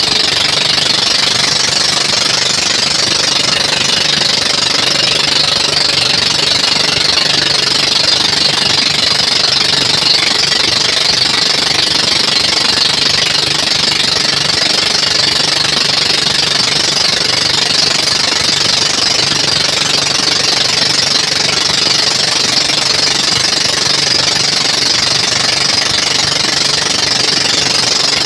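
Outrigger bangka's inboard engine running steadily at cruising speed, with water rushing along the hull.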